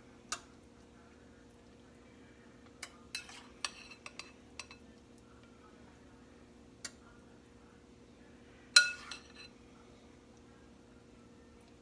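A spoon clinking and tapping against a bowl as filling is scooped out: scattered single clinks, a quick run of them a few seconds in, and the loudest, briefly ringing clink about three quarters of the way through.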